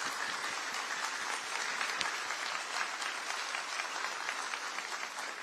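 Audience applauding steadily, a dense clatter of many people clapping.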